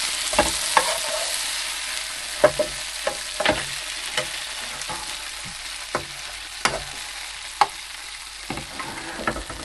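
Beef steak sizzling in a frying pan, the hiss slowly dying down, with sharp clicks and knocks of a utensil against the pan as the steak is turned.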